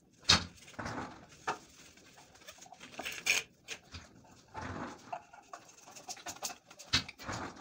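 Plastic sink waste fittings being handled and fitted together by hand: irregular clicks, knocks and rustling, with a sharp click about a third of a second in and another near the end.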